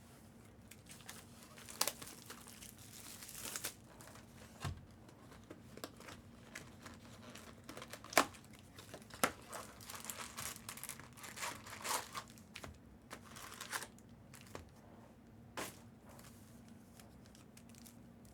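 Plastic and foil trading-card packaging being handled: crinkling and tearing in scattered stretches, with a few sharp clicks and snaps, over a faint steady hum.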